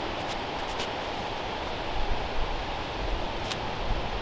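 Strong gusty wind rushing over the microphone, a steady noisy roar with low rumbling buffets that rise and fall, and a few faint ticks.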